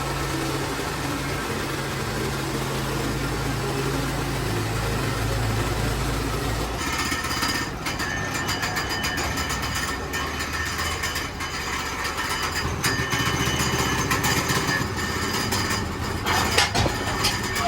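Gas engine of a portable band sawmill running steadily. About seven seconds in, the sound changes abruptly: the low steady engine note gives way to a rougher, noisier running.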